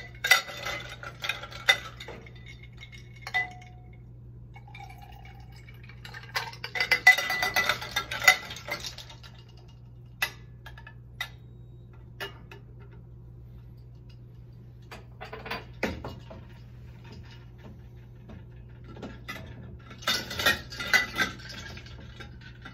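Glass beakers and ice cubes clinking and knocking together as a beaker of chilled reaction mixture is set down into an ice-water bath. The clinks come in bursts: near the start, about seven seconds in, briefly around sixteen seconds and again around twenty seconds in, over a low steady hum.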